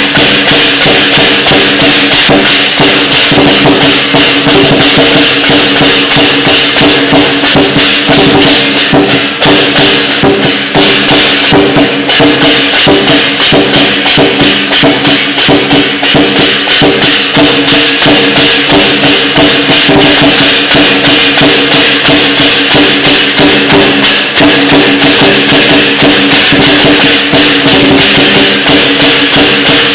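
Chinese lion dance percussion: a lion dance drum beaten in a fast, steady rhythm with clashing cymbals, loud.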